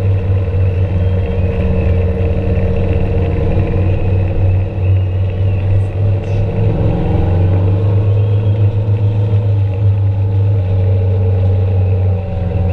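Motor vehicle on the road: a steady, loud low engine drone whose pitch shifts slightly, dipping briefly about halfway through and then picking up again.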